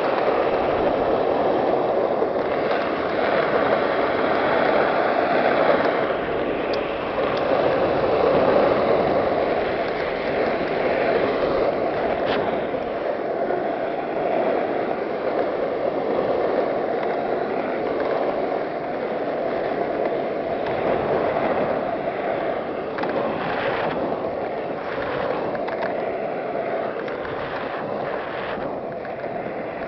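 Skateboard wheels rolling downhill, a steady roar that eases a little toward the end, with a few sharp clicks in the last few seconds.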